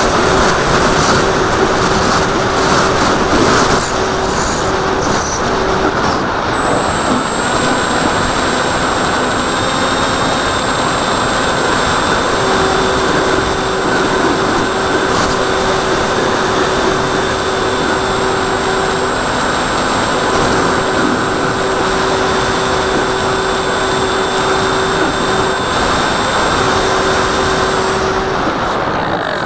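Wind rushing over a camera on the nose of a foam RC plane in flight, with the steady whine of its electric motor and propeller; the low part of the whine drops out and comes back several times.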